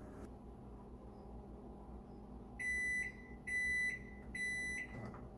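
Electronic timer beeping three times, each beep about half a second long and about a second apart: the 4-minute steaming time is up.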